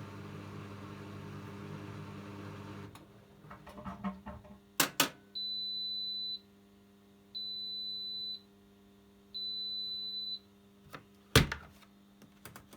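AEG LS60840L washing machine finishing its programme. Its low running hum stops about three seconds in and a few clicks follow. Then three long, evenly spaced beeps sound the end-of-cycle signal, and a sharp click comes near the end.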